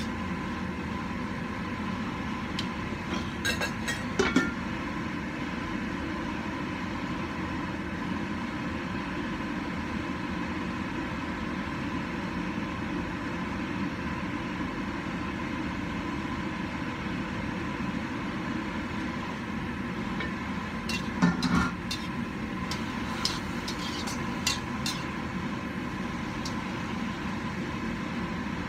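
Vegetables cooking in a wok over a gas burner: a steady hiss and rumble throughout. There are short metal clatters about four seconds in and again around twenty-one seconds in, as the domed metal lid is put on the wok and later lifted off.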